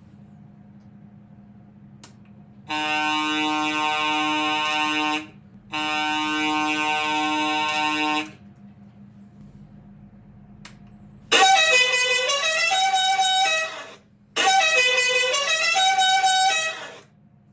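A model sound-effect module playing through a small speaker: a steady horn blast sounds twice, each about two and a half seconds long, then a second sound, a short run of shifting notes, plays twice. A faint click comes before each pair, and a low electrical hum runs underneath.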